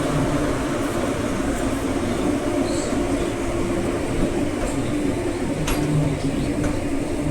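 Vande Bharat Express electric train running: a steady rumble with a constant hum.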